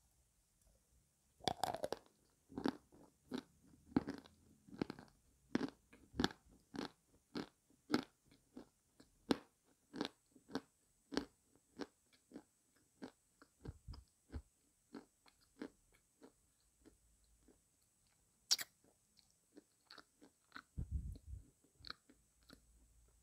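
Close-up chewing of a bite of dry white edible clay: steady crisp crunches about one and a half a second that slowly fade as the piece breaks down, with one sharper click about two-thirds through and a low thud near the end.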